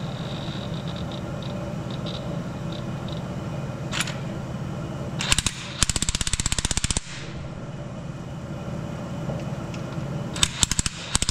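Hand ratchet wrench clicking rapidly in two runs, one about halfway through and one near the end, as the bolts of a blower on a Detroit Diesel 4-53 are run down. A steady low hum lies underneath.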